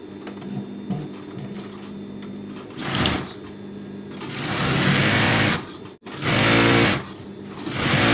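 Single-needle industrial sewing machine stitching a seam in four runs, starting about three seconds in, over a steady hum. The second run is the longest and cuts off abruptly; the others are shorter.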